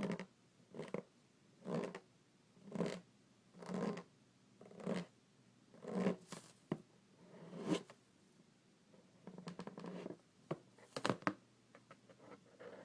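Hands rubbing over an inflated rubber balloon in slow strokes, about one a second, followed by a flurry of quicker scratches and taps near the end.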